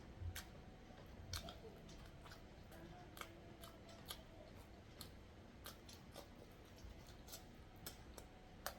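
Close-miked mouth sounds of eating boiled egg with sauce: quiet chewing with scattered sharp, wet clicks at an irregular pace.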